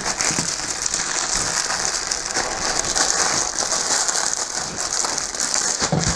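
Clear plastic packaging bag crinkling and crackling steadily as hands work at it, trying to open the sealed wrap.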